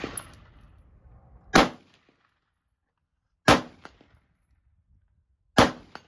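Three single shots from a Radical Arms AR-15 rifle in 5.56, spaced about two seconds apart, each sharp and quickly fading.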